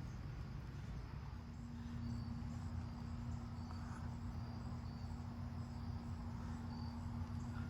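Faint, repeated short insect chirps over a low rumble, with a steady low hum coming in about a second and a half in.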